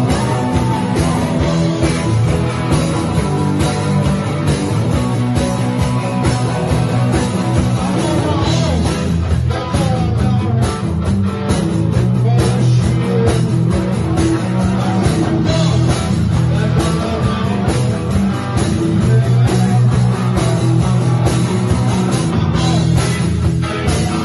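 A live band playing rock music led by guitar.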